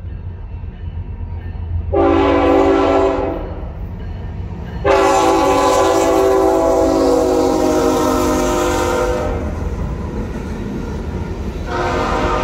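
Union Pacific diesel freight locomotive's air horn sounding in blasts as it passes close by: a short blast about two seconds in, a long loud blast from about five to nine seconds, and another starting near the end, over the steady low rumble of the engines and rolling cars.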